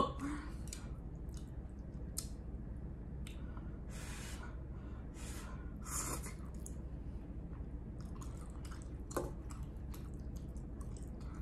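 Close-up eating sounds: soft chewing of bulgogi beef and noodles, with scattered faint wet mouth clicks and smacks and a sharper tap about nine seconds in.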